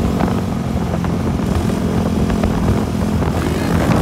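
Dirt bike engine running at steady high revs while the rider holds a wheelie.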